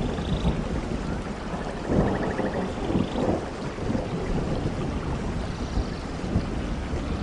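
Steady heavy rain with thunder rumbling low beneath it, the rumble swelling about two seconds in and again a second later.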